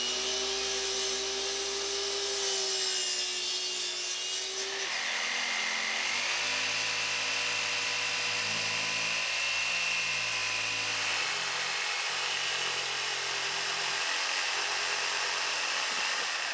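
A miter saw's motor runs steadily for about four seconds, its whine risen just before. Then a corded DeWalt jigsaw runs steadily, cutting notches in a composite deck board, and winds down at the end.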